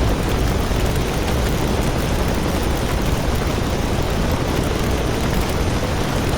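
A steady vehicle engine rumble with a heavy noisy roar, unbroken and even in level.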